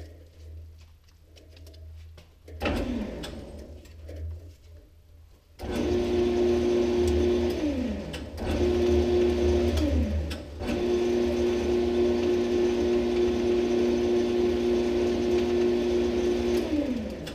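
Metal lathe motor and chuck running with a steady whine, stopped three times and coasting down with a falling pitch each time, the last run the longest. A short clack with a brief spin-down comes a couple of seconds before the first run.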